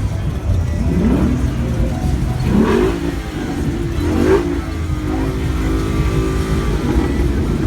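Truck engine revved in three quick rising blips, then held at a higher speed for a second or so, over a steady low rumble.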